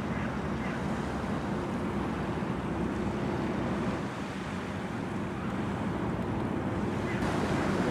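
Wind buffeting the microphone over a low, steady hum of ship engines from a container ship and its attending tug, with the wash of river water.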